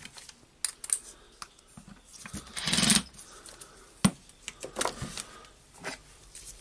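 Small clicks and knocks of tools and parts being handled on a workbench during disassembly of a cordless impact wrench, with a brief scraping noise about two and a half seconds in and a sharp knock about a second later.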